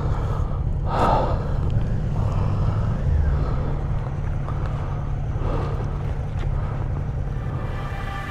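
Low, steady rumble of wind buffeting a helmet-mounted camera microphone over motorcycles idling and moving off slowly, with a short breathy gust about a second in.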